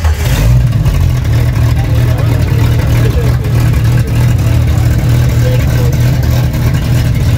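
An off-road 4x4's engine running steadily just after starting, a loud, low, even sound.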